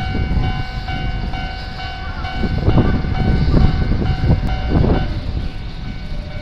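Japanese railway level-crossing warning bell ringing in a steady repeating clang, which stops about five seconds in as the barrier lifts. A low rumble runs underneath and swells in the middle.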